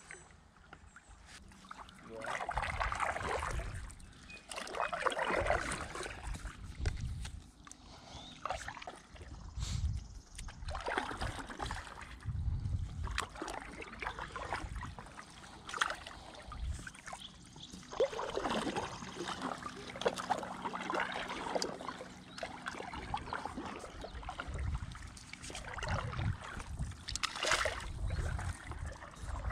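A stand-up paddleboard paddle dipping and pulling through river water: a sloshing, splashing stroke every few seconds, with water trickling off the blade. Low rumbles sit beneath the strokes.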